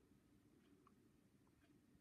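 Near silence: faint room tone with a few very faint ticks.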